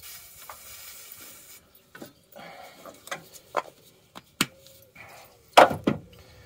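Aerosol can of brake cleaner spraying in one short hiss of about a second and a half, followed by scattered clicks and light knocks and one sharp knock near the end.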